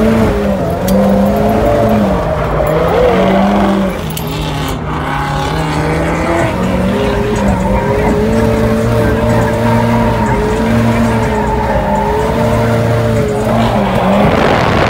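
Drift car's engine held at high revs, its pitch wavering up and down as the throttle is worked, with tyres squealing.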